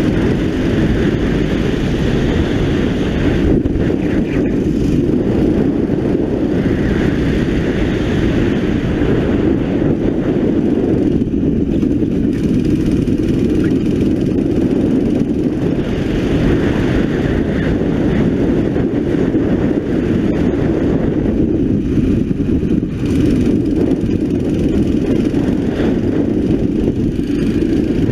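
A 9 hp go-kart engine running hard, heard from on board the kart. Its note swells and eases several times as the driver accelerates down the straights and lifts for the corners.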